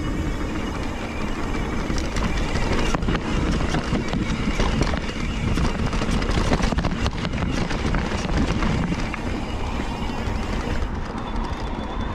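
Mountain bike descending a dirt trail at speed: a steady rush of wind over the microphone with a heavy low rumble, tyres running on dirt, and the bike rattling and clattering over bumps, busiest through the middle.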